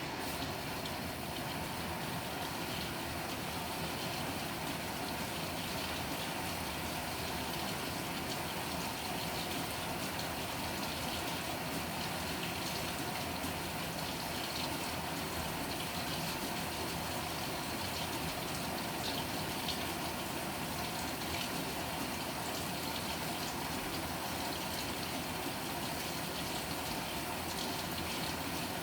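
Water running steadily into the tub of a Panasonic NA-FA100H9 top-loading washing machine as it fills.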